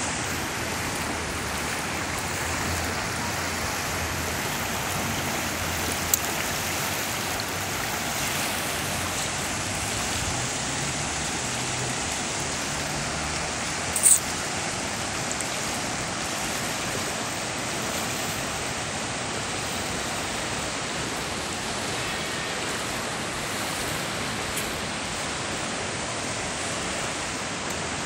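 River water rushing over shallow rapids: a steady, even rush, with a brief sharp click about halfway through.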